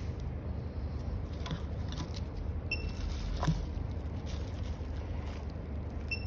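Plastic mailing bag and bubble-wrap packaging being handled, with light rustling and small clicks, one sharper click about halfway through, over a steady low hum.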